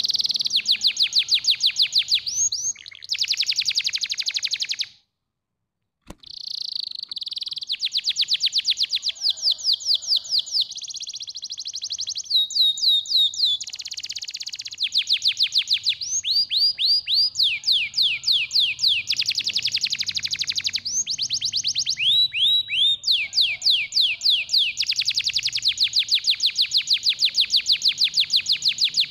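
Domestic canary singing: long, fast trills of repeated notes, each run held a second or two before changing to a new note type, some as quick falling sweeps. The song breaks off for about a second some five seconds in, then resumes.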